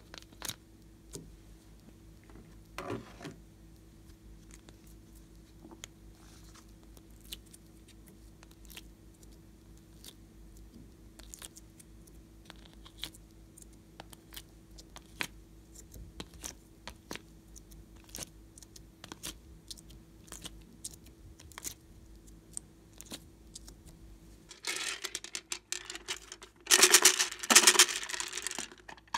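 Fingers tapping and clicking on plastic ice-cube trays while slime cubes are pried out: scattered small sharp clicks over a faint steady hum. Near the end, louder plastic clattering and crinkling as a plastic slime case is handled.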